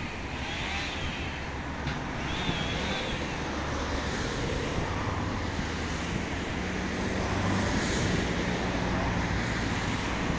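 Steady low diesel engine rumble from construction machinery, swelling a little toward the end, over a wash of traffic-like noise.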